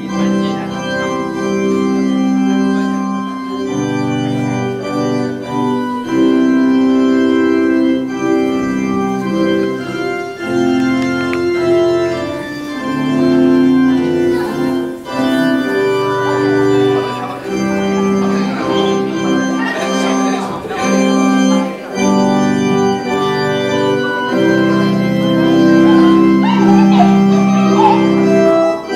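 Organ-sounding music of held chords with a melody on top, played on an electronic keyboard set to an organ voice.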